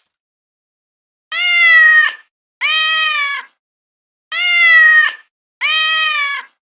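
A cat meowing four times, about a second each, in two pairs; the second pair repeats the first exactly, as a meow sound effect played twice.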